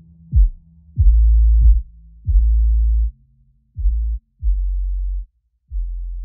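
Electronic music of deep bass notes, each starting with a sharp falling thump, about one a second, growing quieter in the second half.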